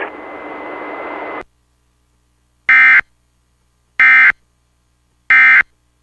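Emergency Alert System End of Message tones: three short, loud bursts of SAME digital data, each about a third of a second, a little over a second apart, signalling the end of the alert. Before them a steady hiss cuts off about a second and a half in.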